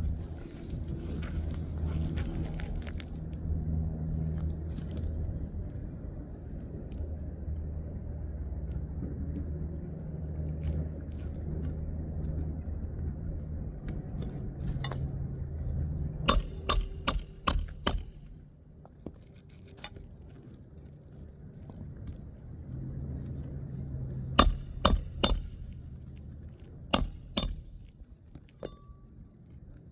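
Hammer driving roofing nails into asphalt shingles by hand. Sharp ringing metal strikes come in runs: about six quick blows past the middle, then four, then two more near the end.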